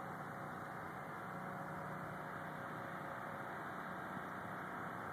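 Truck-mounted crane's engine running steadily, a constant hum with a few faint steady tones.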